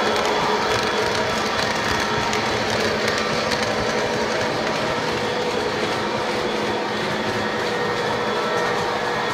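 Electric model trains running on tubular metal track: a steady whirring hum of motors and the rumble of wheels on the rails, easing off a little in the first seconds as the passing train moves away.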